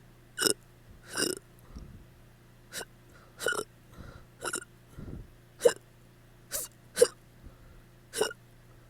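A person hiccuping over and over after drinking: nine sharp hiccups, irregularly spaced about half a second to a second and a half apart, with softer breath sounds between some of them.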